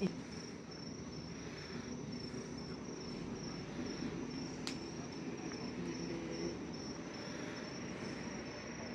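Insects chirping in a steady train of short high-pitched pulses, a few a second. A single sharp click a little under five seconds in comes as garden scissors snip a tomato stem.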